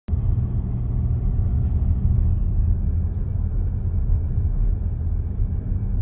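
Car driving along a road: a steady low rumble of road and engine noise.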